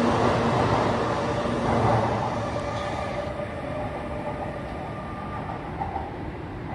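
Shinkansen N700A bullet train pulling out of a station: a loud rushing run with a steady whine as the last cars go by. It fades from about three seconds in as the train draws away down the track.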